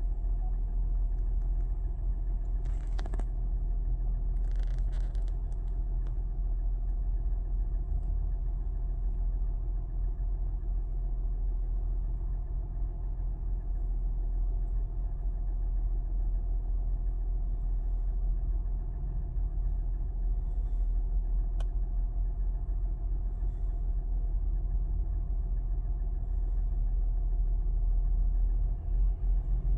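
Toyota 1GR-FE 4.0-litre V6 engine running steadily with a knock from the engine.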